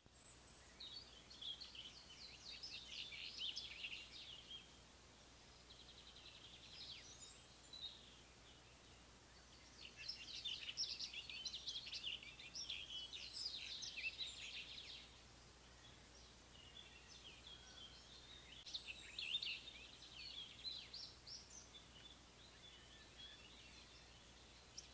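Faint, high-pitched bird chirping in four bouts of rapid chirps, each a few seconds long, with quieter gaps between them.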